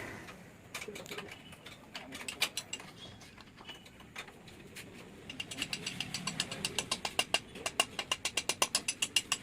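Ratchet wrench clicking as bolts are run in during engine assembly: scattered clicks at first, then from about halfway in a fast, even run of clicks, about six a second.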